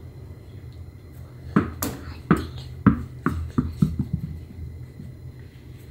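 A tennis ball thrown against a padded foam plyo box, then bouncing several times on rubber gym matting. It makes a run of short, dull knocks starting about a second and a half in, which get softer and come closer together.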